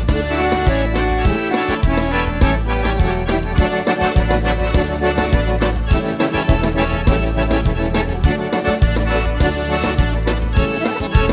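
Accordion playing an instrumental passage of a gaúcho country song, over a steady rhythm of bass notes and percussion.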